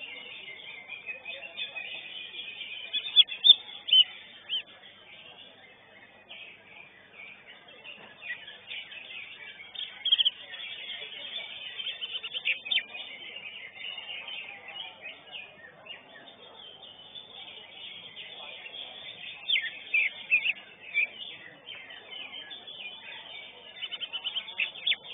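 Cucak hijau (green leafbird) singing in clusters of sharp, high chirping notes, a few seconds apart. Underneath is a steady bed of other contest songbirds and faint crowd murmur.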